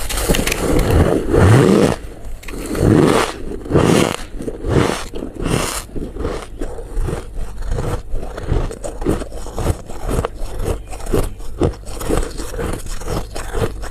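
Squeaky white ice being bitten and chewed close to the microphone. A couple of long crunching bites come in the first few seconds, then rapid chewing crunches, about three or four a second.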